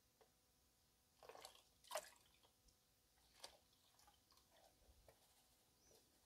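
Faint drips and small splashes of water off a plastic gold pan being tilted over a tub of soapy water. A few scattered drops, the loudest about two seconds in.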